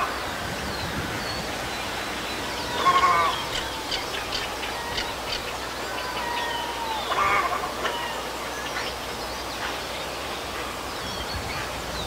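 Two loud, harsh heron squawks, about 3 and 7 seconds in, over faint chirps of smaller birds and a steady outdoor background.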